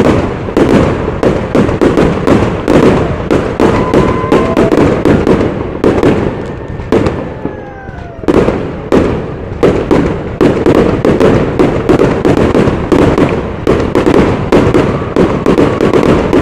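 Aerial fireworks display: rapid, overlapping bangs of shells bursting, several a second, thinning briefly about halfway through before a loud bang restarts the barrage.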